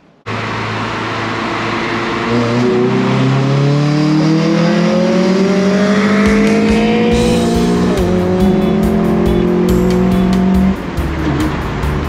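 Car engine pulling hard under acceleration, its pitch climbing steadily for several seconds and then holding steady, with music playing over it.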